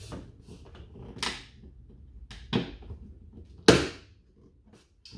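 Plastic clips snapping into place as an inner door panel and its wire harness are pressed back onto a Toyota GR Supra's door. There are four sharp snaps about a second apart, with fainter clicks between them, and the loudest snap comes a little under four seconds in.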